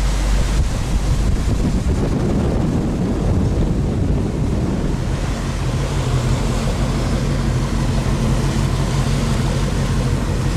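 Wind buffeting the microphone on open water, with sea noise around the boat and a steady low engine hum that grows stronger about halfway through.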